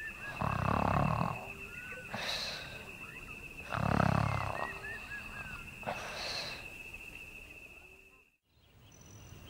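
Cartoon snoring sound effect: two slow snores, each a rumbling in-breath followed by a hissing, whistling out-breath, over a steady high trill that stops about eight seconds in.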